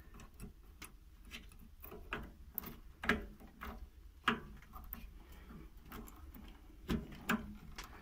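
Small clicks and taps of a hand handling the wiring and lamp housing inside an opened microwave oven, with a few sharper knocks on the metal.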